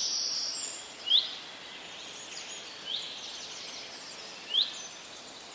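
Small birds chirping over a steady hiss: a short upward-sweeping chirp repeats about every one and a half seconds, with a burst of twittering at the start.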